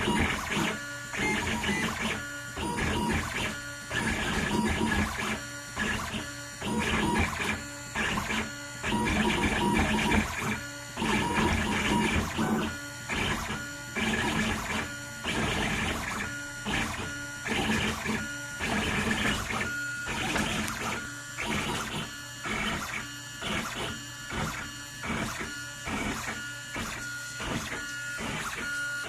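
Homemade pen-plotter CNC's stepper motors whining as the machine makes many short moves, each stopping briefly before the next, in a stop-start rhythm that grows quicker and more regular in the second half.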